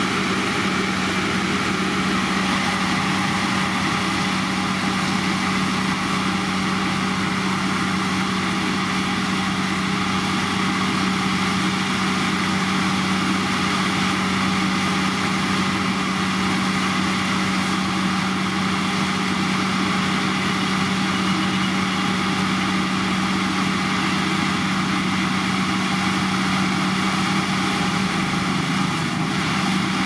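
Heavy road-construction machinery's diesel engine running at a steady speed, with an even hum that does not change.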